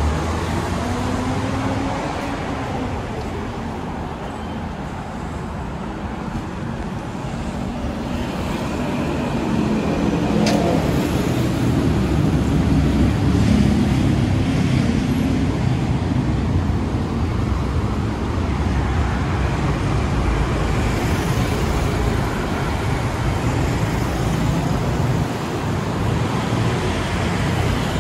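Busy road traffic: a steady wash of car and bus engines and tyre noise, growing louder in the middle as vehicles pass close by, with a single sharp click about ten seconds in.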